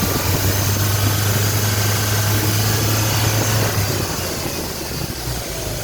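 Mitsubishi Fuso Canter's four-cylinder diesel engine idling steadily, with a low even hum; it runs smoothly now that the misfire traced to the No. 2 injector's connector has been cured by cleaning it.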